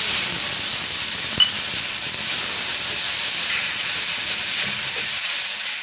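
Wet, mashed onion-tomato masala poured into hot oil in a kadhai, hissing and sizzling loudly as it throws off a cloud of steam. The hiss starts suddenly and holds steady, with one brief tap about a second and a half in.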